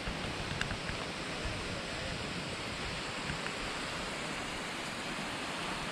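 Steady rush of falling water from the Skógafoss waterfall: an even hiss with no breaks in it.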